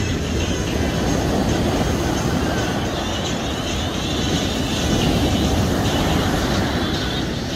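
Waves breaking on a sandy beach: a steady rush of surf with a heavy low rumble.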